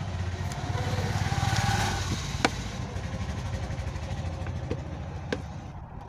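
An engine running steadily with a fast low pulse, swelling about a second or two in and then easing off, with a few sharp clicks over it.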